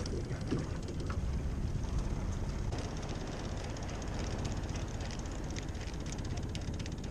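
Steady wind rumble on the microphone over water lapping at a small boat, with faint light clicks from a spinning rod and reel being handled in the second half.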